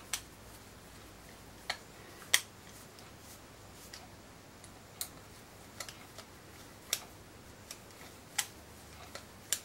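About a dozen small sharp clicks at uneven intervals, the loudest a little over two seconds in, as a screwdriver tightens the back-strap screws of an Uberti 1851 Colt Navy revolver.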